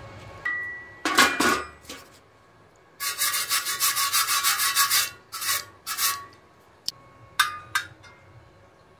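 Rapid back-and-forth scraping strokes over a rusty steel square tube at a freshly welded seam, about six a second for a couple of seconds. There is one short scrape about a second in and a few single scrapes near the end.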